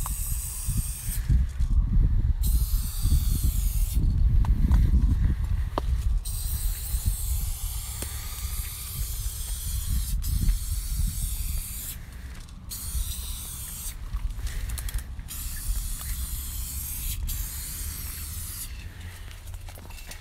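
Aerosol spray-paint can spraying in long hissing strokes broken by short pauses, with a low rumble underneath that is loudest in the first several seconds.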